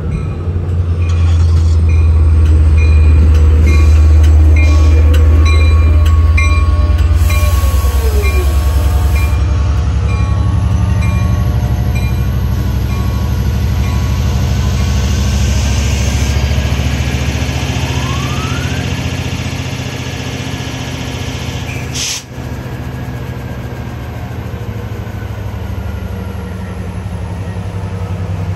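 Diesel train passing close by: a loud, deep engine drone that peaks a few seconds in, then the wheels rolling past as it slowly fades. A row of evenly spaced high ticks sounds over the first seven seconds.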